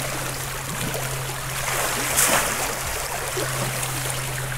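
Sea water splashing and swirling as a landing net is pushed through it and a thornback ray is scooped up beside the boat, with a louder splash about two seconds in. A steady low engine hum runs underneath.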